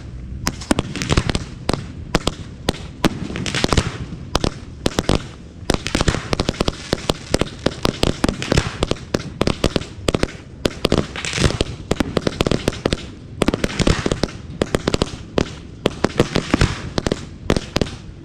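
A professional aerial fireworks display going off continuously: many shells and cakes bursting in quick succession, a dense stream of sharp bangs and crackles over a rushing hiss, with no break.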